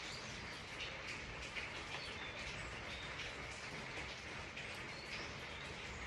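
Steady rain falling, with individual drops ticking, and a few short, high bird chirps over it.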